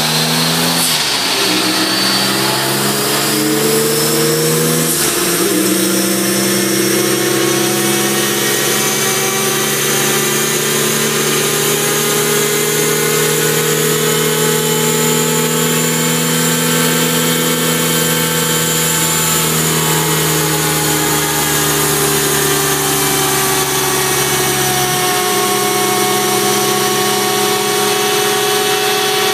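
Noble M400's turbocharged engine running under load on a chassis dynamometer at steady, moderate revs. The engine pitch dips sharply about five seconds in, then climbs slowly and eases back down, with a steady high whine above it.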